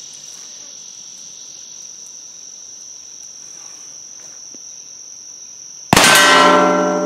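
Insects buzzing steadily. About six seconds in comes a single loud shot from a .50 caliber Lyman Great Plains percussion pistol loaded with 30 grains of Swiss 3F black powder. The metal hog target then rings on with a steady tone as the round ball hits it.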